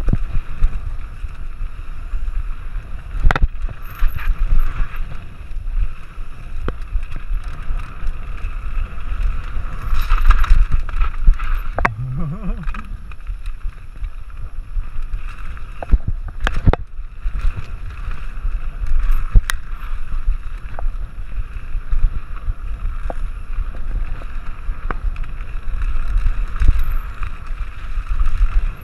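Mountain bike rattling down a dirt trail: a steady rumble of tyres and wind on the microphone, broken by several sharp knocks as the bike hits bumps.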